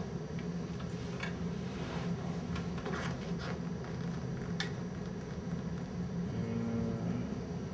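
Room tone: a steady low hum with a few faint clicks near the middle.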